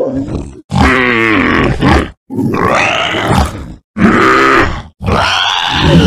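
Dinosaur toy sound effects: a run of about five recorded grunting roars, each about a second long, with short breaks between them.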